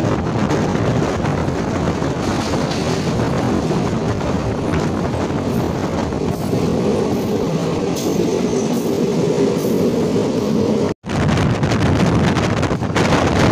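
Passenger train running along the track, heard from an open coach door as a steady rumble of wheels on rail. The sound breaks off for an instant about eleven seconds in, then the same steady noise returns.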